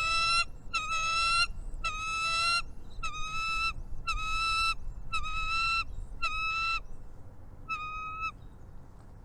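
Bird calls at a nest: a series of about eight nasal, honking calls, each held for under a second and repeated roughly once a second, stopping shortly before the end.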